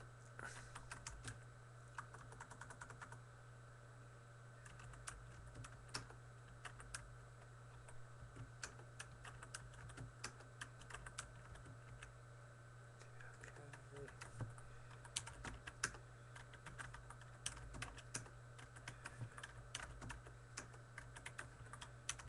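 Faint typing on a computer keyboard, irregular bursts of key clicks, over a steady low electrical hum.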